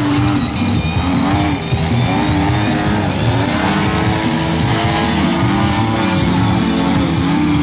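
Engine of a radio-control aerobatic model plane running, its pitch rising and falling again and again as the throttle is worked to hold the plane in a nose-up hover. Music plays along with it.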